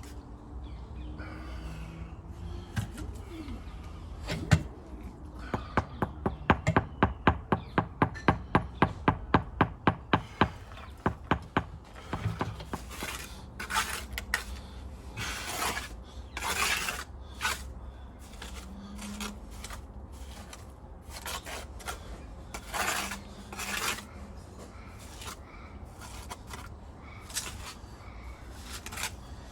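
A quick run of sharp taps or knocks, about three a second, followed by irregular scraping and rasping, like a hand tool working on hard material.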